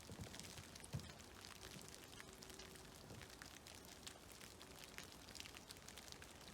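Faint, scattered drips and patter of meltwater and snow falling from trees into a creek, with one louder drop about a second in.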